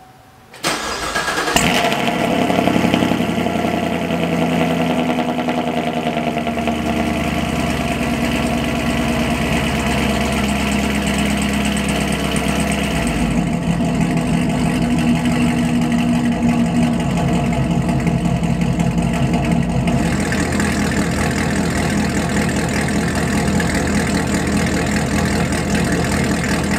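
Chevrolet Camaro SS's 6.2-litre LT1 V8, breathing through long-tube headers and an MBRP axle-back exhaust, starting up about half a second in with a brief rev flare, then settling into a steady idle.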